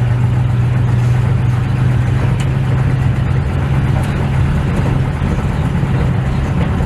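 1956 Chevrolet Bel Air's engine running steadily, a low, even drone heard inside the car.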